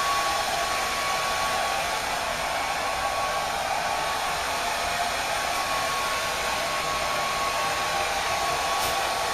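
Hair dryer running steadily: an even blowing rush with a thin high whine that fades out for a few seconds midway and returns.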